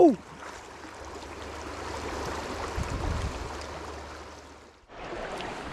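Flowing river water, a steady rushing hiss that swells around the middle and drops out briefly near the end.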